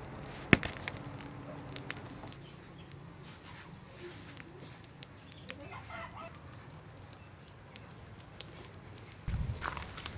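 Chickens clucking faintly, with a sharp click about half a second in.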